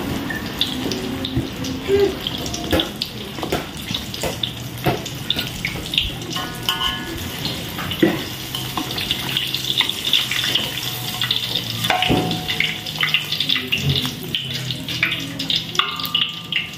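Water running steadily from a kitchen tap into a sink, with irregular knocks and clatters of utensils.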